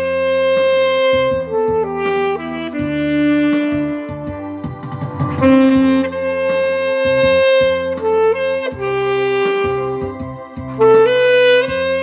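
Alto saxophone playing a slow song melody in long held notes over a recorded accompaniment with a bass line.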